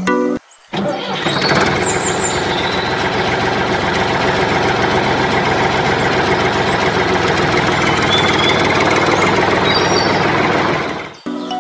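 A tractor engine starts about a second in, then runs steadily and cuts off abruptly near the end.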